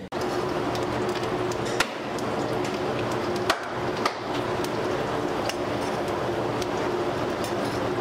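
Chopped garlic and chillies frying in hot oil in a wok, a steady sizzle, with a few sharp clinks of a steel spoon against the steel plate and pan, the loudest about two and three and a half seconds in.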